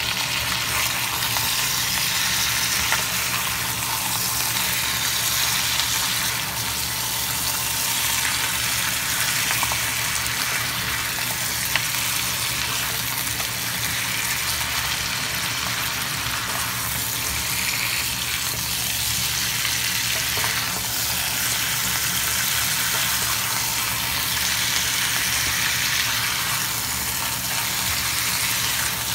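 Chicken pieces sizzling steadily as they fry with onion and ginger in a nonstick wok, with a spatula stirring and turning them now and then.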